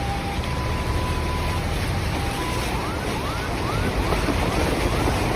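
Steady rush of heavy rain and running floodwater. In the first half a steady electronic tone switches between two pitches; from about halfway on, short rising chirps repeat about twice a second.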